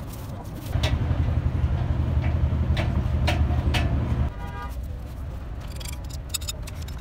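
Low engine rumble of a motor vehicle running for a few seconds, broken by a few sharp metal clinks, then cut off abruptly. A brief horn-like toot follows just after it, and a few faint clicks come near the end.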